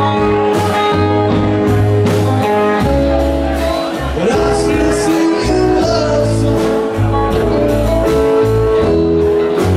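A live rock band plays at a steady loud level: electric guitars over bass and drums, with cymbal strokes throughout.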